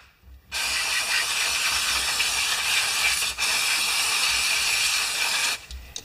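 A pressurised jet hissing steadily into the passages of a Briggs & Stratton lawn mower carburetor during cleaning. It starts about half a second in, breaks briefly near the middle, and stops near the end.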